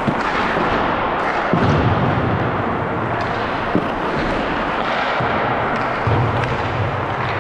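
Ice rink din during hockey warm-up, with sharp knocks and thuds of pucks hitting the boards now and then, over music.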